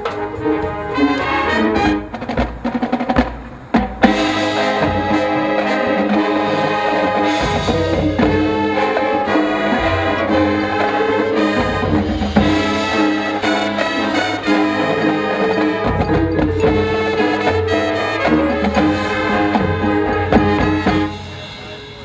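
Marching band playing a brass-led passage with percussion: a few sharp drum hits in the first seconds, then full, loud sustained brass chords over the drums. The music breaks off about a second before the end.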